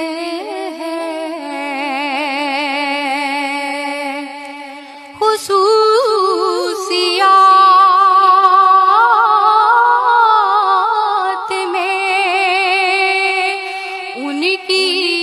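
A woman singing a naat, drawing out long notes with a wide vibrato. She breaks briefly about five seconds in, then holds a louder sustained phrase from about seven seconds.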